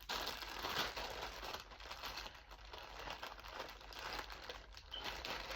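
Plastic packaging crinkling and rustling as clothes are handled and unwrapped.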